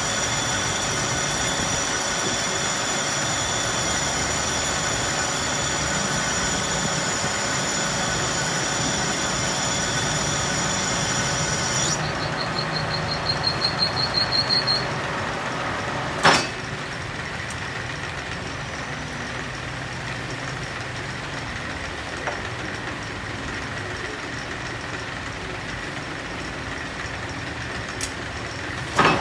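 Metal lathe running, with a high-pitched squeal from the tool cutting metal that stops abruptly about twelve seconds in. The machine keeps running after that, with a sharp metallic knock about halfway through and another just before the end.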